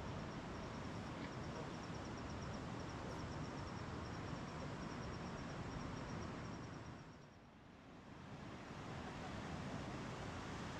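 Steady rushing of a river, with a cricket chirping in a fast, even, high-pitched pulse. About seven seconds in the chirping stops and the whole sound briefly dips before the rushing returns.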